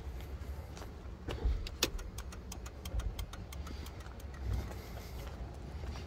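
Pickup truck engine idling with a steady low rumble, and a fast run of clicks about one to three seconds in: the turn-signal flasher hyperflashing because the new LED bulbs draw too little current.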